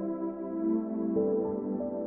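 Soft ambient background music with long held notes; the notes change about a second in.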